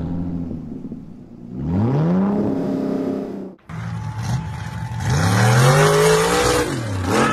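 An engine revs up once and cuts off abruptly about three and a half seconds in. Then a lifted pickup on giant mud tires accelerates hard down a dirt track, its engine revving higher and higher over a rush of noise from the tires throwing dirt.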